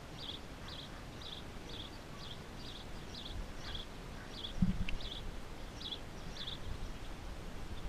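Steady, evenly spaced high chirping, about two chirps a second, from a small animal, with one brief low thump about halfway.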